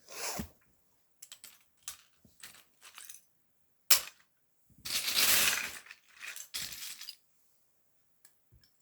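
Plastic LEGO bricks clicking and clattering as someone rummages through them looking for a piece, with a longer rattling burst about halfway through.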